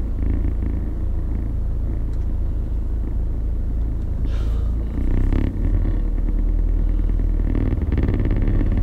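Car engine and tyre rumble heard from inside the cabin while driving, low and steady, growing heavier about five and a half seconds in.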